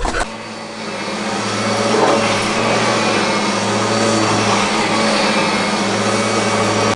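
An electric motor appliance running with a steady hum and a loud rushing noise. It builds up over the first two seconds, holds level, then cuts off abruptly near the end.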